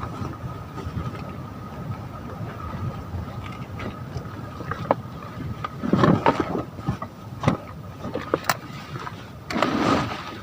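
Small campfire burning, with scattered sharp snaps and pops over a steady low rush. There are louder bursts about six seconds in and again near the end.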